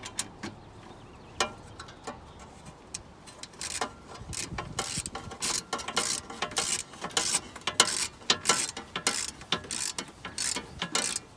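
Hand ratchet clicking in quick strokes as a fastener on the intake airbox bracket is tightened. A few scattered clicks at first, then runs of rapid ratcheting from about four seconds in.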